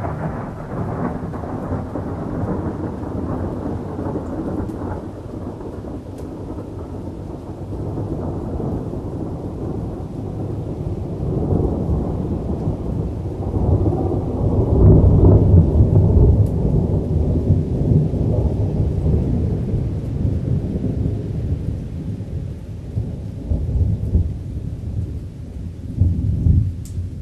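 Thunder: a sudden crack right at the start, then a long rolling rumble that swells to its loudest about halfway through. It surges twice more near the end and then cuts off.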